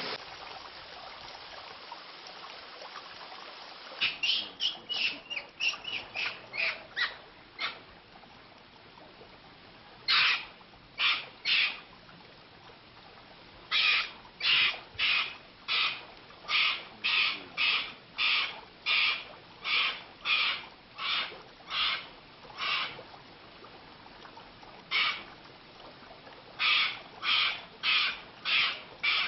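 An animal's short, harsh calls, repeated in runs of roughly one to two a second with gaps between the runs, starting about four seconds in.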